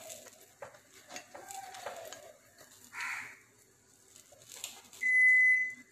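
Faint clicks and light clatter, a brief rush of noise about three seconds in, then a single steady high-pitched electronic beep lasting under a second near the end, the loudest sound.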